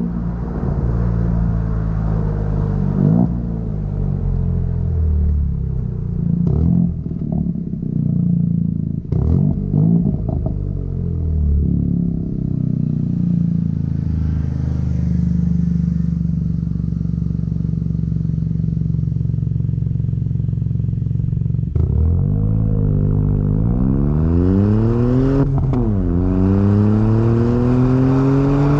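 Chevrolet Onix RS 1.0 turbo three-cylinder running through an aftermarket sport exhaust with Luzian LA011 intermediate muffler, a deep exhaust note at fairly steady revs with a few short clicks. Near the end the revs climb, drop sharply once and climb again under acceleration.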